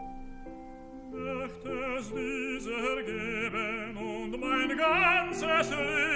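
Tenor singing a German art song with piano accompaniment. The piano plays alone for about the first second, then the voice comes in with wide vibrato and grows louder toward the end.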